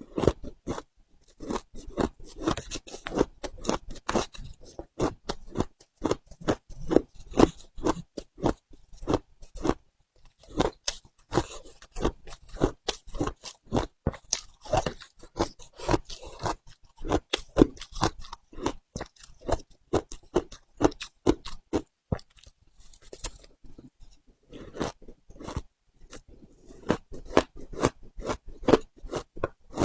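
Matcha ice being bitten and chewed: a continuous run of crisp crunches, several a second, broken by a few short pauses.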